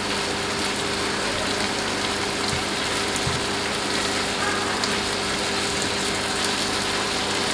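Prawns frying in oil in a pan over a gas flame still on high, a steady sizzle, with a steady low hum underneath.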